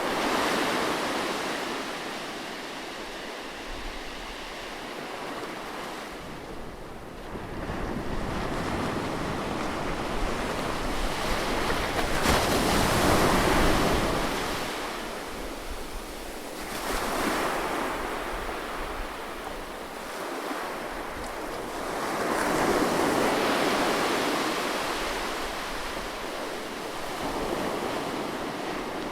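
Ocean surf: waves breaking and washing up a beach, the roar swelling and fading every few seconds, with the biggest wave about halfway through.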